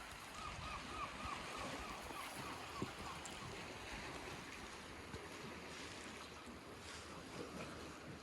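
Steady wind and waves at the shore, with a quick run of about ten short chirping bird notes in the first three seconds.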